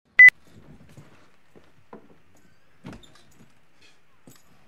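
A short, very loud high-pitched beep at the very start. After it come faint scattered knocks and shuffling, and near the end a short scoff.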